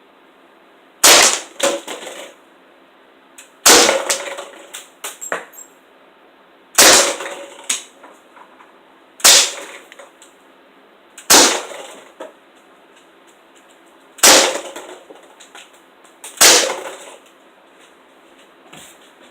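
BB gun fired seven times, one sharp shot every two to three seconds, each followed by a short rattle of smaller clicks.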